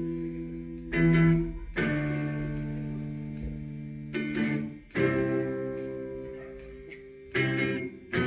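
Guitar chords struck one at a time and left to ring out, each fading before the next, about six in all: the slow opening of a punk rock song.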